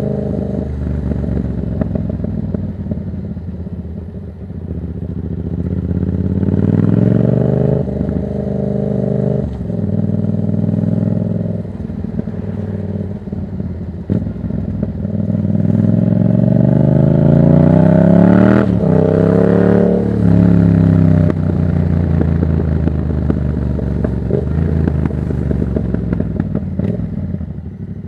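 Yamaha MT-07's 689 cc parallel-twin engine running through a Black Widow exhaust with no dB killer, heard from the rider's seat. The revs climb and drop back at each upshift about a quarter and a third of the way in. A longer, louder pull reaches the highest revs about two-thirds through, then the engine eases off and settles.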